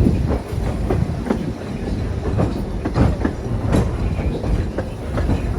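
Train running on the track: a steady low rumble with irregular clicking and knocking of wheels over the rails.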